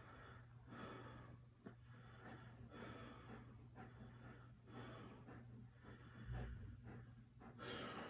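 Faint breathing and snorting, about one breath a second, from a dog being held in a wrestling grip by its owner. There is a soft low bump a little after six seconds.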